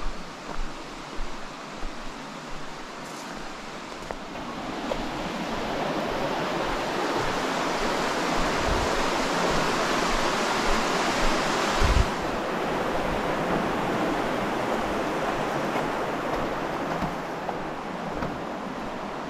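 Creek water rushing over shale ledges, a steady noise that swells louder through the middle and eases toward the end. A few footsteps on stone at the start.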